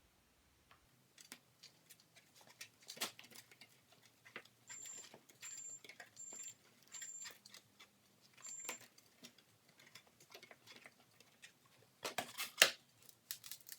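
Self-adhesive sandpaper being handled and stuck onto a sanding disc: quiet paper crackles and clicks, five short high squeaks at even intervals around the middle, and a louder crackling rustle near the end.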